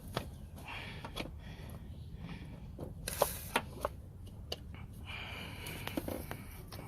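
Scattered clicks, light knocks and rustling from hands working a rubber serpentine belt over the engine's pulleys, with a few sharper clicks a little past three seconds in.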